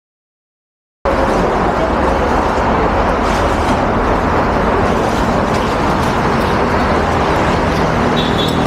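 Busy city street ambience: steady road traffic noise from cars and buses, starting suddenly about a second in.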